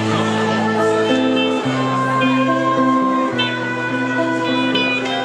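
Live band playing: acoustic and electric guitars, a bowed violin and bass guitar, with long held notes over a steady bass line.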